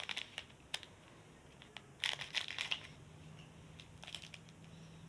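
Small plastic packet crinkling and being cut open, in several short crackly bursts, the loudest about two seconds in.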